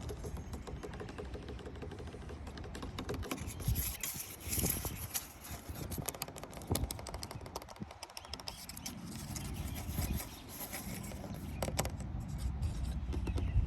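Outdoor ambience: a low rumble of wind on the microphone, with scattered crackling and rustling clicks and a few louder knocks about four to five seconds in.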